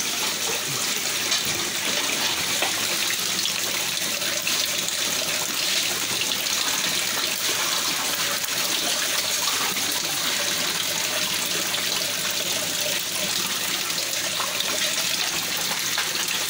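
Water running steadily into a shallow hatchery tank: an even, unbroken rush of flowing water.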